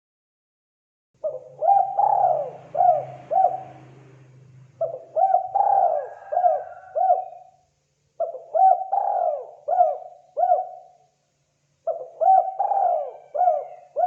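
Spotted dove cooing: four phrases of about five short notes each, one phrase every three to four seconds, starting about a second in.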